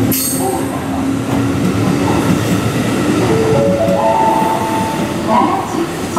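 JR West 223 series electric train running past, with steady rolling wheel noise on the rails and a brief high squeal at the start. From about three seconds in, a whine rises in steps.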